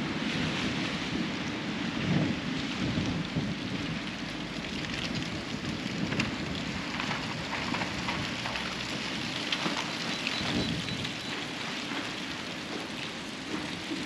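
Wind buffeting the camera microphone while walking along a city street: a steady rumbling, crackling noise with no voices.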